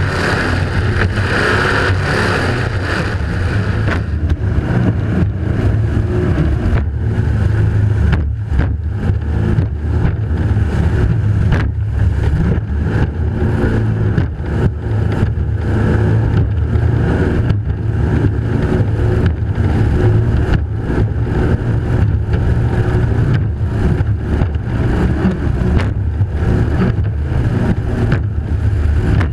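Offshore racing powerboat running flat out, heard from the open cockpit: a loud, steady, deep engine drone mixed with wind and water noise, with frequent brief dips from about a quarter of the way in as the hull rides over the waves.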